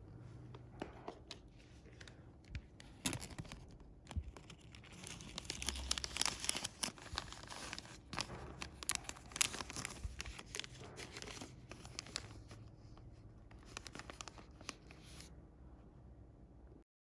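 Small clear plastic zip-lock bag crinkling and crackling as it is handled and a coiled fishing rig is slipped inside, with a dense run of sharp crackles in the middle, then lighter rustling.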